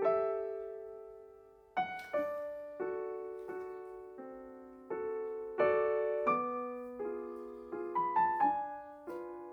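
Slow, gentle solo piano music: single melody notes and chords struck one after another, each ringing out and fading.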